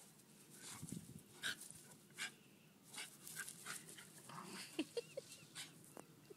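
Two terriers, a Patterdale and a Parson Jack Russell, panting and scuffling as they play-fight, with a couple of brief squeaky whines about five seconds in.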